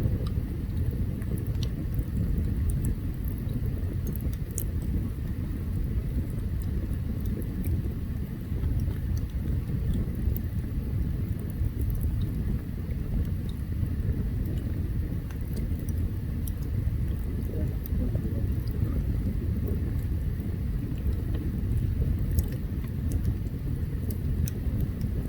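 Open campfire burning: a steady low rumble with sparse faint crackles and pops.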